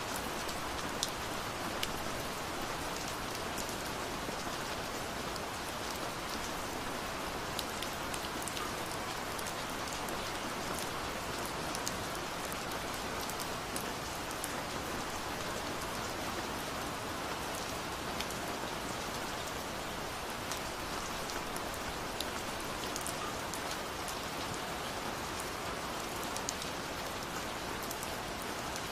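Steady rain falling, with scattered single drops ticking through it.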